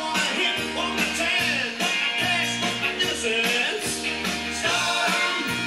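A song with singing, played from a vinyl record on a Dual 1009 SK2 idler-drive turntable and heard through its speakers.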